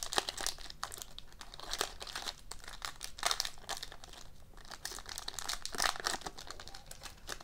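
Foil trading-card pack wrapper being peeled open and crinkled by hand, a run of irregular crackles and rustles as the cards are worked out.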